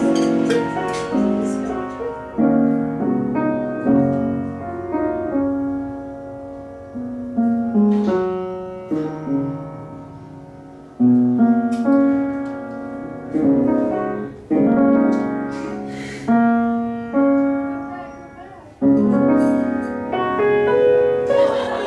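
Solo piano played at an unhurried pace: chords and single notes are struck and left to ring and die away, with a strong fresh chord every few seconds.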